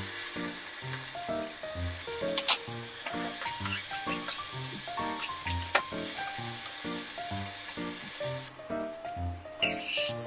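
Food sizzling in a frying pan, a steady hiss that stops abruptly about eight and a half seconds in and returns briefly near the end, with a couple of sharp clicks. Background music with a bouncing bass line plays throughout.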